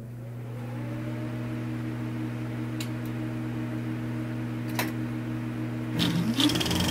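A steady mechanical hum of a running motor, with a few low held tones, and two faint clicks. About six seconds in, the hum changes and a short rising whine comes in.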